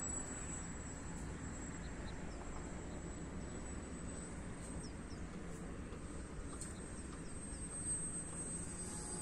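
Wind noise rumbling on the microphone, with a steady high-pitched whine or buzz running through it that grows a little louder near the end, and a few faint short chirps.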